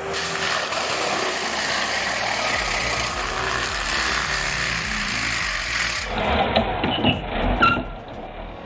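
Steady, loud machinery noise, then, about six seconds in, a sudden change to a low engine rumble with a few brief higher tones.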